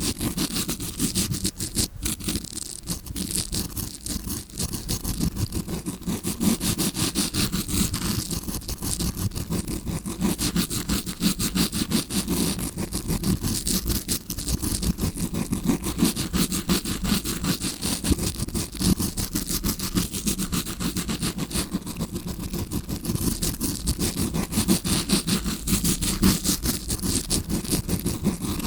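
Tawashi scrubbing brush rubbed close against a microphone in rapid, continuous scratchy strokes, imitating the sound of an ear being cleaned as heard from inside the ear canal.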